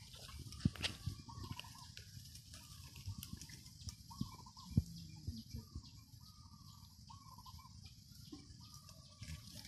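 Chickens clucking, a dozen or so short calls about a second apart, over a steady high hiss, with a few sharp snaps and rustles of dry bamboo leaves being handled.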